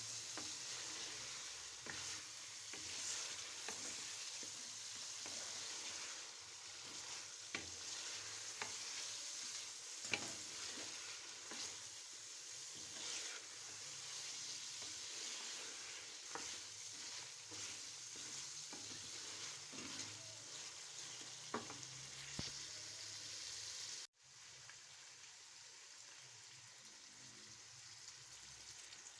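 Chicken karahi sizzling in hot oil in a karahi pan while it is stirred, with occasional sharp clicks and scrapes from the stirring. About 24 seconds in the sound cuts off abruptly and comes back as a quieter, steadier sizzle.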